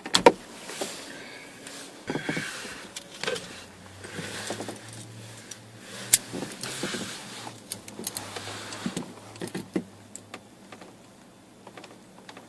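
Hand-work on speaker wiring: scattered sharp clicks and short rustles of tools, connectors and wires being handled, with one loud click at the very start.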